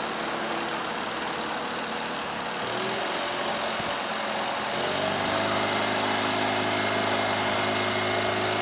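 Narrowboat's engine running steadily under way. About five seconds in its note rises briefly, then settles into a steadier, slightly louder hum.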